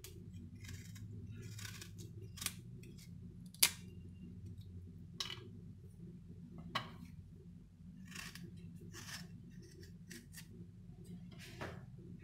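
Small kitchen knife cutting into a firm, lightly green guava: irregular crisp cuts and scrapes, one sharper snap a few seconds in. A steady low hum runs underneath.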